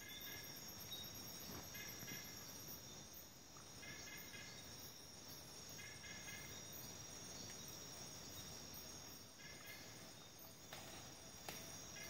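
Night rainforest ambience: insects trilling steadily at a high pitch, with a short pulsed chirping call repeating every two to three seconds. A couple of faint clicks come near the end.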